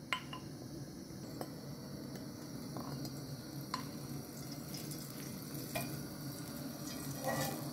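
A wooden spoon scraping and tapping a ceramic bowl and a nonstick frying pan as chili oil is scraped into the pan, a few light sharp taps over a steady low hiss.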